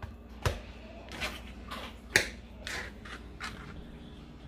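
Sharp clicks and soft taps from cutting raw chicken: a knife knocking on a plastic cutting board and pieces dropped into a plastic bowl. Two louder clicks come about half a second and about two seconds in, with several softer taps between and after.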